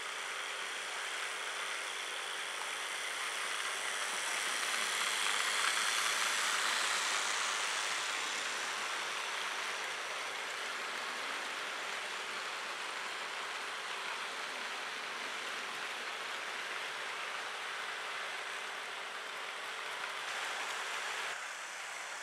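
Model train running: an electric model locomotive pulling a string of tank wagons, a steady motor hum with wheels rattling over the track. It is loudest as the train passes close about six seconds in, and the hum cuts off shortly before the end as the train stops.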